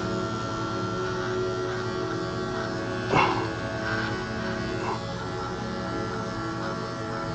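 Electric dog grooming clipper running with a steady buzz as it shaves the underside of a cocker spaniel. About three seconds in the dog makes one short sound.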